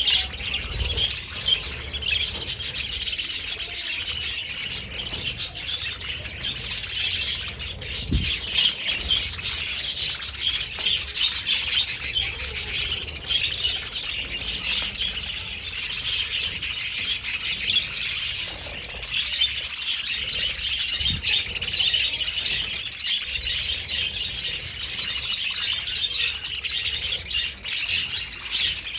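Budgerigars chirping and warbling in a busy, unbroken chatter.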